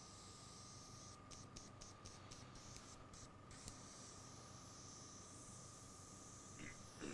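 Near silence: faint room tone with a steady high tone and hiss.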